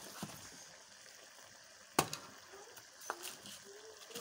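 Vegetable curry hissing and simmering in an aluminium kadhai, with a sharp clink about two seconds in and a lighter one about a second later.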